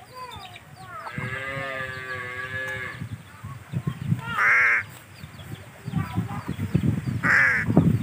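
Crows calling: a long, drawn-out nasal call for about two seconds, then two short, loud, harsh caws, one about halfway through and one near the end.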